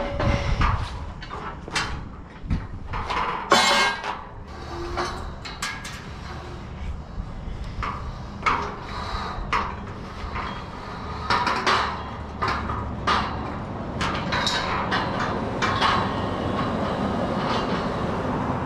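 Steel scaffolding being taken apart: irregular metallic clanks and knocks of tubes, frames and perforated steel deck planks, with a rope being handled over the deck, over a steady low rumble.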